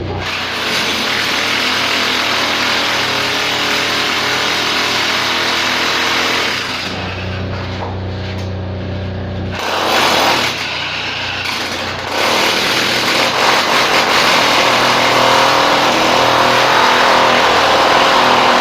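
A loud power tool running in two long stretches, with a pause about halfway through where only a low steady hum remains and a short burst of the tool comes in about ten seconds in.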